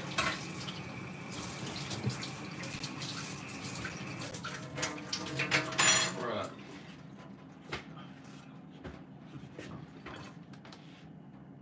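Kitchen sink tap running into the sink, shut off suddenly about six seconds in. After that come scattered light clinks and knocks of dishes.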